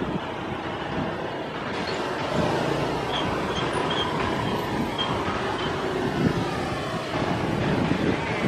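Twin-engine jet airliner on final approach, its engines giving a steady rumbling roar with hiss.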